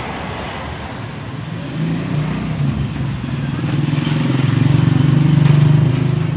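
A passing motor vehicle's engine: a low, steady hum that grows louder from about two seconds in, peaks near the end, then begins to fade.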